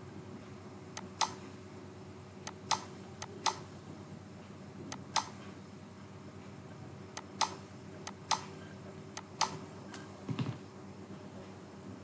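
Computer mouse clicking: irregular sharp clicks, many in close pairs (press and release), as parts and wires are placed by mouse. A faint steady hum lies underneath.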